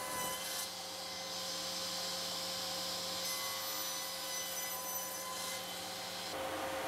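Table saw running steadily while a wooden shelf blank is fed through the blade along a template fence. The steady hum shifts slightly about six seconds in.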